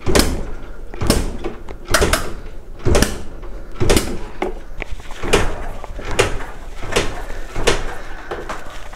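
Motorcycle engine being kicked over again and again without firing, about nine strokes at roughly one a second, each a sharp puff that fades. The engine is being cranked to pump carbon cleaner out of the combustion chamber.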